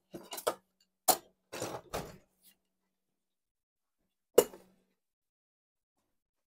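A few short clicks, knocks and scrapes of hand tools and air fittings being handled, clustered in the first two seconds, with one sharp click about four and a half seconds in.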